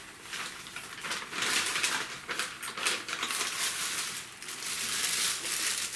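Irregular dry rustling and crinkling from material being handled, in uneven bursts with short pauses between them.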